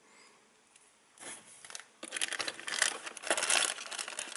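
A clear plastic zip bag crinkling and rustling as it is picked up and handled. After a nearly quiet first second and a short rustle, a dense crackle starts about two seconds in and goes on.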